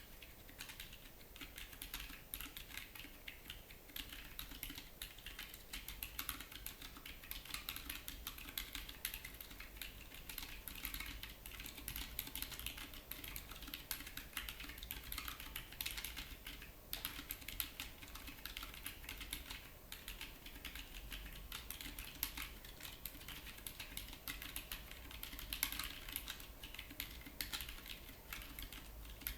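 Continuous fast typing on a Keyboardio Atreus mechanical keyboard with Gazzew Boba U4 silent tactile switches (62 g) and Drop MT3 Dusk keycaps: a dense, muted clatter of keystrokes.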